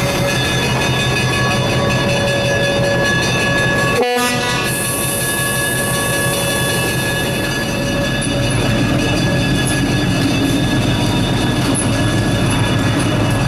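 Diesel switcher locomotive engine running steadily as the locomotive moves slowly along the track close by. The sound breaks for an instant about four seconds in, and a high hiss follows for a couple of seconds.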